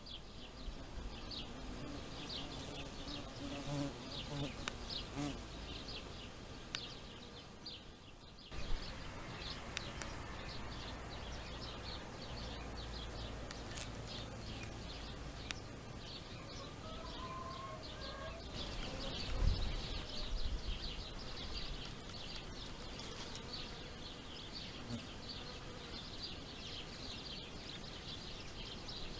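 Outdoor ambience of a blossoming tree: insects buzzing, with many short, high bird chirps throughout and a low background rumble. There is a low thud about twenty seconds in.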